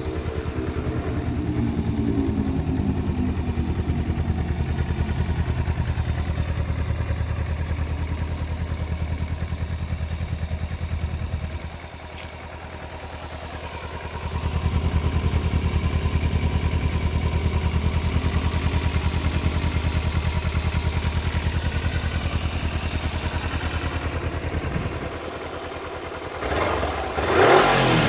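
2013 Kawasaki Ninja 250's parallel-twin engine idling, the idle falling in pitch over the first few seconds before holding steady. Near the end the throttle is blipped and the revs climb sharply to about 5,000 rpm.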